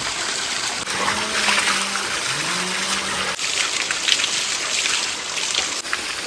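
Stream water flowing steadily, with irregular small splashes.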